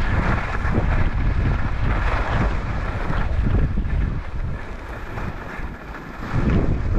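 Wind buffeting the microphone of an action camera moving downhill at speed, with the rider's edges scraping over chopped, tracked-out snow. The rush drops quieter for a moment about two thirds of the way through, then picks back up.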